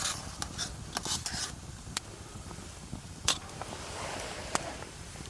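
Campfire cooking: scattered sharp clicks and light scrapes, about seven in all, over a steady low rumble.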